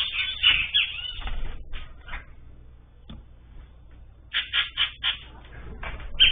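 Birds calling with short, harsh notes: a dense cluster in the first second, then a quick run of about five short calls about four seconds in.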